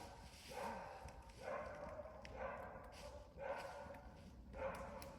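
A dog barking over and over, faint, about one bark a second.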